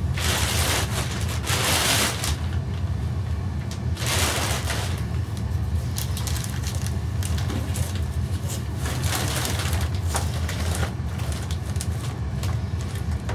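Metal clinks, knocks and scraping from the gear shafts of a VW Passat manual gearbox being worked out of the casing, with a few short noisy rushes in the first few seconds. A steady low hum runs underneath.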